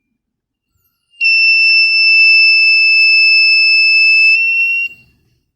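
The buzzer of a thermistor fire alarm circuit sounds one steady, high-pitched tone for nearly four seconds, starting about a second in and then cutting off. It is triggered by the smoke the thermistor has detected.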